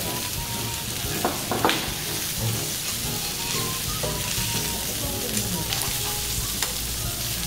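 Pork belly sizzling steadily on a hot tabletop grill pan, with metal tongs clicking against the pan a few times, loudest about a second and a half in.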